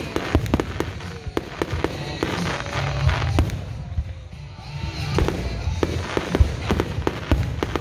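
Aerial fireworks shells bursting in quick succession: a steady run of bangs and crackling.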